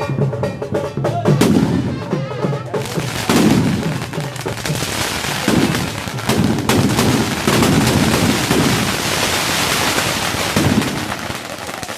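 Fireworks going off: a dense barrage of sharp bangs and crackling, with several heavier booms.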